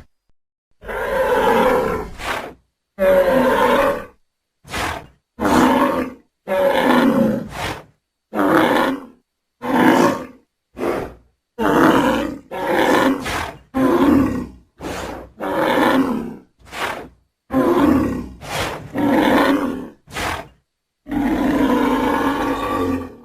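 A string of about twenty separate wild-cattle bellows and grunts, each under a second to about two seconds long, with dead silence between them as in a sound-effects reel. The longest bellow comes near the end.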